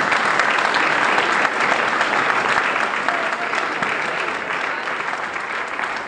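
An audience applauding, dense clapping that slowly dies down.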